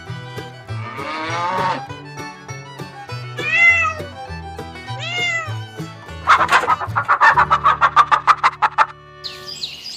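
Domestic cat meowing, two rise-and-fall meows, over background music with a steady beat; then a fast run of short pulsed calls, about six a second, for nearly three seconds.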